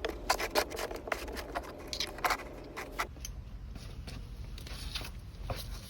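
Small metal tools and bolts clinking and rattling as they are handled. The clicks come irregularly, thick for the first three seconds and then sparser.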